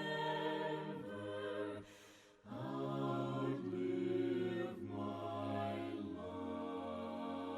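Unaccompanied voices singing a slow hymn in long held notes, breaking off briefly about two seconds in before the next phrase.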